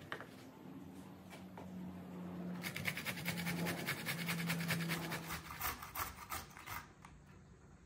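Zucchini being grated on a stainless-steel box grater: a soft scraping at first, then quick, rhythmic rasping strokes from about two and a half seconds in, which stop shortly before the end.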